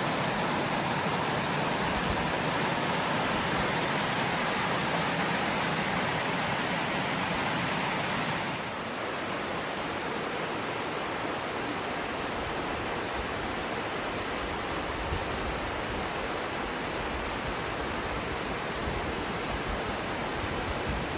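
A steady rush of water cascading down a waterfall. About eight and a half seconds in it becomes slightly softer and duller, then carries on evenly.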